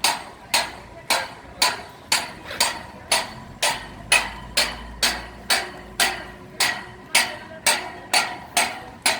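Steady hammering: sharp, slightly ringing blows repeating evenly about twice a second.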